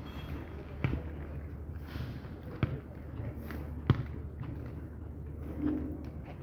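A football being kicked and juggled, each touch a sharp thud: three thuds, irregularly spaced, the last the loudest.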